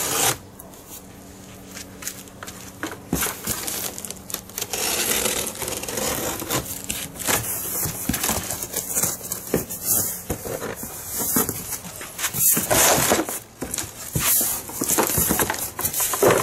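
Cardboard shipping box being opened by hand: flaps pulled up and folded back, with crinkling and rustling of the plastic-wrapped parts and packing inside, coming in irregular bursts and knocks.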